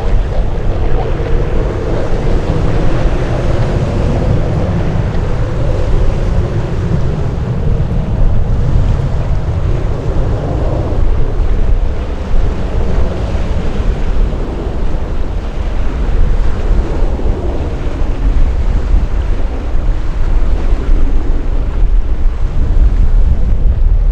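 Jet aircraft engine noise, a loud steady rumble with pitched engine tones that fade about halfway through, mixed with wind buffeting the microphone.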